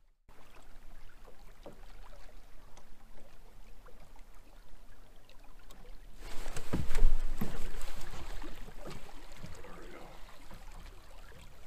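River water running past a fishing boat, a steady wash. About six seconds in a louder stretch of rustling noise with a few low thumps rises and then fades over the next few seconds.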